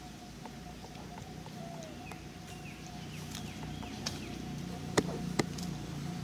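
Outdoor ambience with a thin steady buzz and faint chirps over a low hum that slowly grows. Near the end come two sharp clicks about half a second apart, the loudest sounds here.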